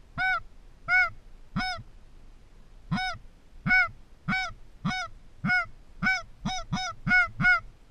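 A series of about thirteen loud goose-like honks, each breaking from a short low grunt up into a high arched note, repeating evenly a little more than once a second and coming a little faster near the end.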